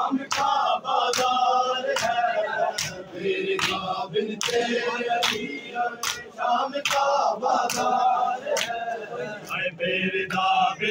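Men chanting a Muharram noha together, over a steady beat of hands slapping on chests (matam), a little more than one stroke a second.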